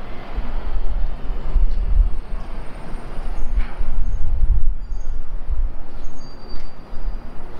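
Outdoor city background noise: a steady hiss of traffic over an uneven low rumble, with a few faint short high tones in the second half.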